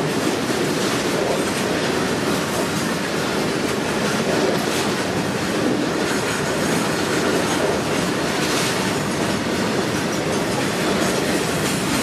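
BOXN open freight wagons rolling past on the rails: a steady rumble and clatter of steel wheels on track.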